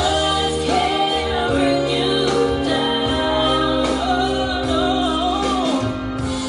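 Music: a song with a singing voice over held bass notes and chords, playing for a dance routine.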